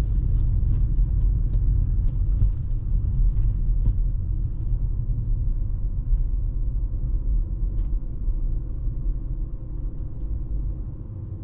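Low, steady road and tyre rumble inside an electric Tesla driving on snowy roads, with a few faint ticks in the first few seconds. The rumble eases off gradually toward the end.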